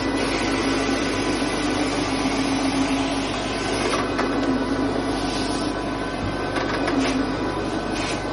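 Powered carpet-extraction cleaning head running steadily as it is worked over the carpet, with its vacuum drawing through the hose: a continuous machine whir with a low hum under it.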